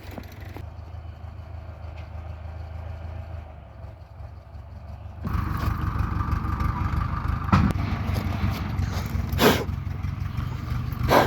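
1995 BMW E34 being cranked by its starter without catching. A low rumble first, then about five seconds in a louder whirring crank with a steady whine sets in, with three sharp knocks in the second half.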